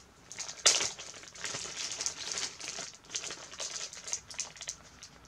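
Clear plastic bag crinkling and rustling as a wax melt is taken out of it, with a sharp crackle just under a second in.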